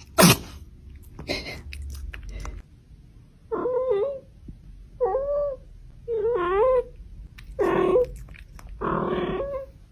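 A cat sneezing once, short and sharp, just after the start. Then the cat meows three times in the middle, followed by two longer, rougher cries near the end.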